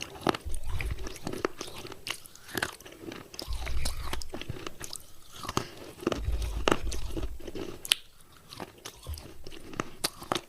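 A person biting and chewing pieces of wet clay pot close to the microphone: irregular gritty crunches and crackles in several bouts, with low thuds as the jaw bites down.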